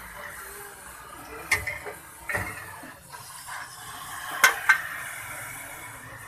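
Gas cutting torch hissing steadily as its flame cuts through a car's rusted steel floor pan. Several sharp metallic clinks break through it, the loudest two close together about four and a half seconds in.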